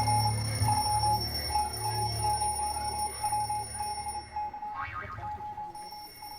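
Rapid electronic beeping on one pitch, like an alarm clock, played over a sound system with a low bass hum beneath it. The hum drops away about four seconds in and the beeping grows fainter.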